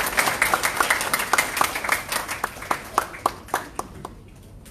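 Audience applause, dense at first and thinning out to a few scattered claps that die away about four seconds in.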